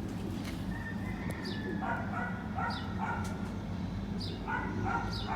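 A small dog yipping in short bursts, twice in quick groups, with short high downward chirps repeating about once a second over a steady low hum.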